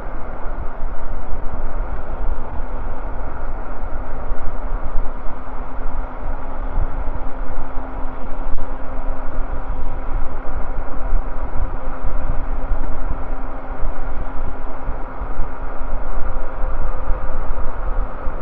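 Wind buffeting the microphone and road noise from an e-bike riding along a paved street, a steady rumbling rush, with a faint steady hum under it.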